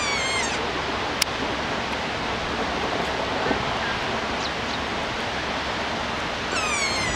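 Snow avalanche pouring down a steep rock face: a steady rush of falling snow and water. A high call falls in pitch at the start and again near the end, and there is one sharp click about a second in.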